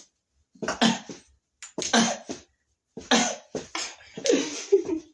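Short, breathy vocal bursts of effort from people straining through a lift and swing: a string of gasps and cough-like exhalations, coming faster near the end.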